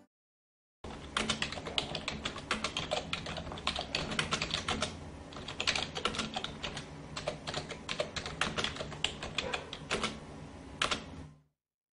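Rapid, irregular computer-keyboard typing, many keystrokes a second, starting about a second in and stopping shortly before the end. It is a typing sound effect laid under on-screen text being typed out.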